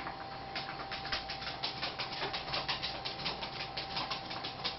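Rapid, even series of light clicks, about seven a second, over a faint steady high whine.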